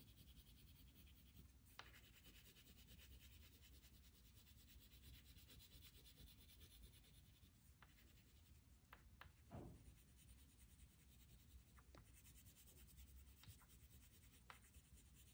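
Faint scratchy rubbing of colouring strokes laid lightly over paper to fill in a sky, with a few light taps, the most distinct about nine and a half seconds in.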